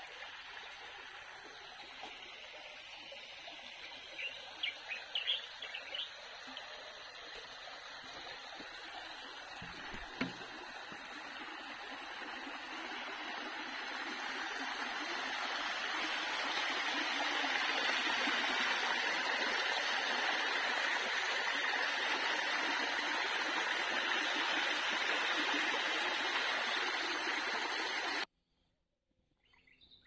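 Water running along a concrete irrigation channel, a steady rush that grows louder about halfway through and cuts off abruptly near the end. A few short bird chirps about five seconds in, and a single low thump about ten seconds in.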